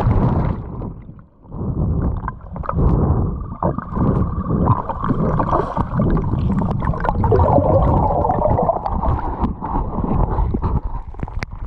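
Muffled sloshing and gurgling water, heard through a camera in the water, with a brief lull about a second in.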